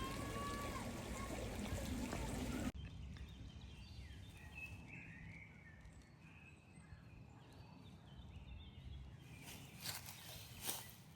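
Running water for the first few seconds, cut off abruptly to a quiet outdoor background with faint bird chirps, and two short knocks near the end.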